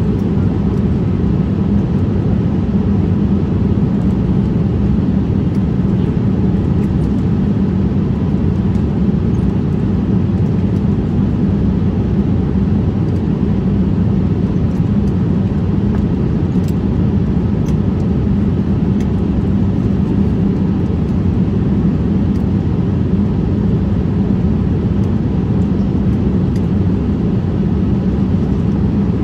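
Steady cabin noise of a Boeing 787-8 Dreamliner in flight, heard from a window seat over the wing: a low, even rush of engine and airflow noise.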